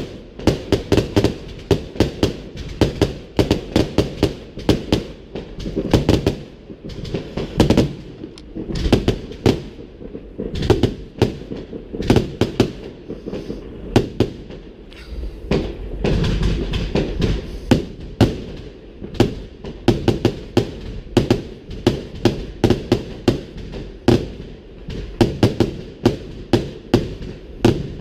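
Fireworks display: a continuous barrage of sharp bangs and crackles, several a second, each with an echoing tail, and a deeper rumbling stretch about halfway through.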